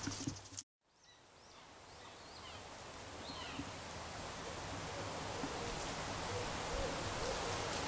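Woodland ambience: a steady rushing hiss of wind and rustle that grows slowly louder after a brief cut-out about a second in, with a few faint, high bird chirps early on after the cut.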